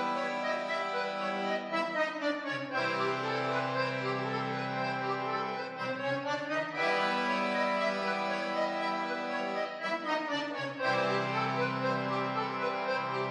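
Live instrumental music from a music-school ensemble: sustained held chords that change about every four seconds, with a low bass note under some of them.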